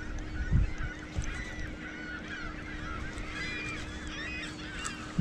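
A flock of waterbirds calling continuously, many short calls overlapping, with a few low wind thumps on the microphone.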